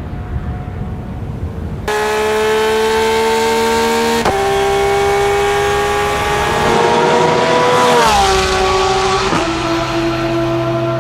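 Porsche 911 GT3 R rennsport's naturally aspirated flat-six racing engine, with a low rumble for about two seconds, then a sudden loud engine note. Its pitch climbs steadily, dips at a gear change about four seconds in, climbs again, then falls around eight seconds in and settles to a steady note after another shift near nine seconds.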